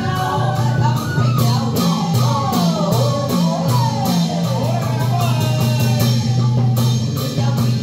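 Traditional Vietnamese water puppet theatre music: a plucked string melody with sliding, bending pitches over a steady low beat and regular percussion strokes.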